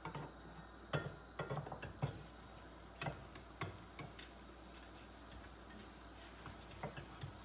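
Spatula tapping and scraping against a nonstick frying pan while an egg omelette is worked and turned, in irregular clicks and knocks: a cluster in the first four seconds, then a few more near the end.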